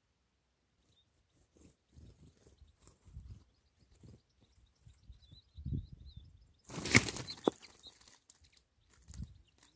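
A bird trapper's clap net is sprung over a drinking puddle: about seven seconds in comes a loud, sudden rushing whoosh, with a sharp snap just after. Before it, faint twittering of goldfinches and a few soft low thuds.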